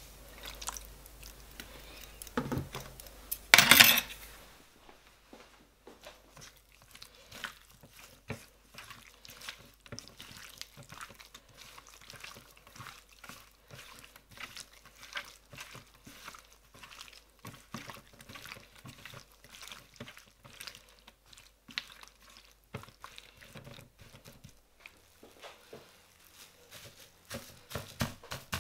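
A metal clatter about four seconds in, then raw chicken pieces squelching and slapping on a metal baking tray as a gloved hand mixes them with soy-based marinade. Near the end, cling film crinkles as it is pressed over the tray.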